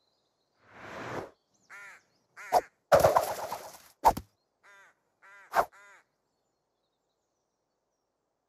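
Cartoon crow sound effects: a handful of short cawing calls, with a loud rustling rush about three seconds in and a few sharp knocks.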